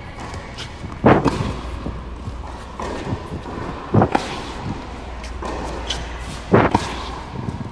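Three sharp tennis ball impacts about two and a half to three seconds apart, the loudest sounds here, picked up close on a player's wrist.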